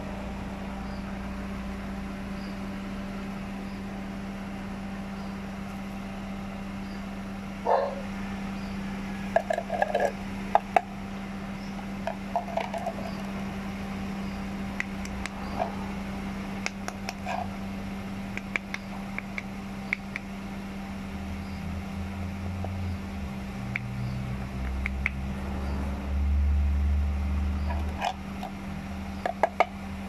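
Clear plastic dust-cup cover and filter housing of a 12 V car vacuum clicking and knocking as they are handled, in scattered short clicks over a steady low hum. A low rumble swells through the second half.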